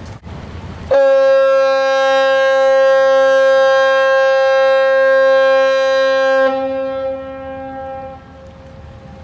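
A ferry's fog horn sounds one long blast, a steady note about five and a half seconds long, then dies away with a trailing echo. It is a fog signal from a ship close by but unseen in thick fog.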